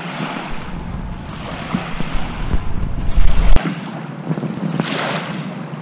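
Small lake waves washing onto the shore, with wind buffeting the microphone in a low rumble that cuts off suddenly about three and a half seconds in.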